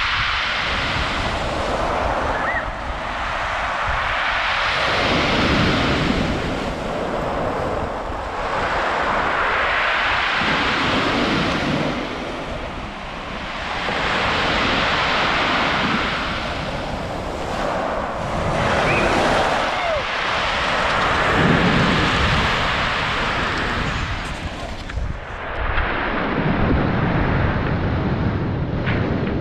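Sea waves breaking on a pebble beach, the surf swelling and easing in repeated surges every few seconds, over a low rumble of wind on the microphone.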